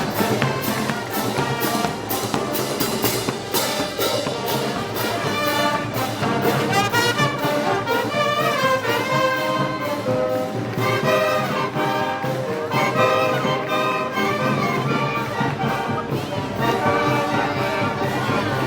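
Brass band playing festival march music, with brass melody lines over a regular percussion beat.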